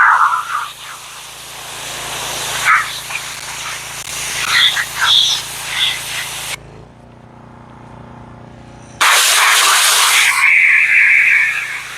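Pressure washer spraying with a steady hiss. About two-thirds of the way through the spray stops for roughly two seconds, leaving only the machine's low steady hum, then starts again loudly.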